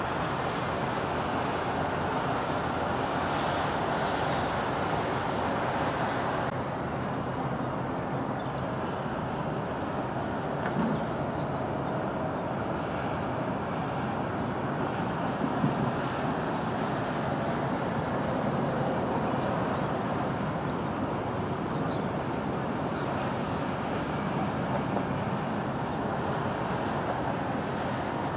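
Steady road traffic noise from vehicles passing on the road.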